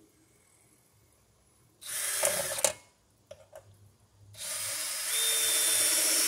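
Cordless drill/driver running in two bursts: a short one about two seconds in, then, after a few light clicks, a longer steady run from about four seconds in that gets louder partway through.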